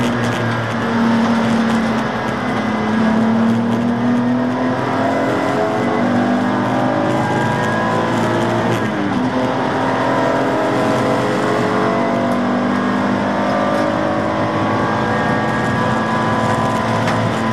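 BMW Z4 Coupé (E86) race car's straight-six engine accelerating, heard inside the cabin: its note climbs with the revs, falls sharply about nine seconds in, then climbs steadily again.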